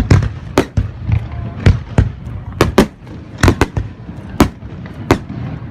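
Aerial fireworks shells bursting in quick, irregular succession: more than a dozen sharp bangs in under six seconds, over a low rumble.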